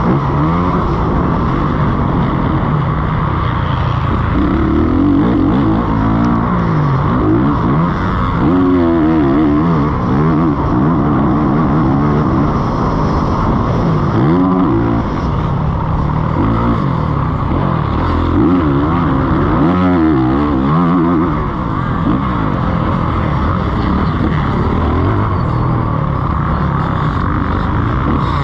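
Motocross bike engine heard from on board at racing speed, revving up and dropping back again and again as the rider accelerates and shifts.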